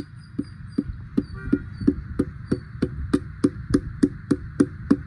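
A hammer tapping steadily on engine parts, about three light knocks a second, getting slightly faster and louder.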